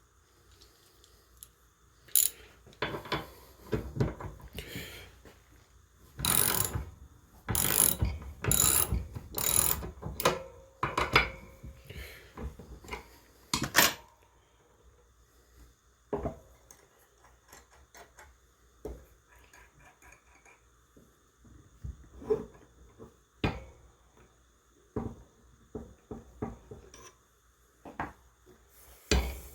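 Metal clanks, knocks and ratchet clicks of workshop tools being worked on a rifle barrel vise and action wrench: a dense run of loud knocks in the first half, then scattered lighter clicks.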